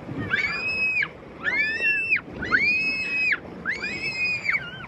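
Riders squealing on a raft water slide: high-pitched squeals, about one a second, some overlapping, over the rush of sliding water.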